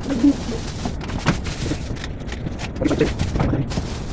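Irregular knocks and clatter of kitchen things being handled, over a steady background hiss.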